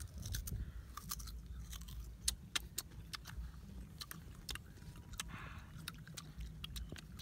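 A person chewing crunchy fruit, with sharp, irregular crunches several times a second.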